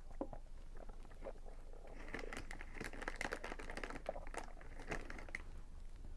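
Eating sounds picked up close: a few faint clicks, then from about two seconds in a dense run of crackling and crunching for some three seconds.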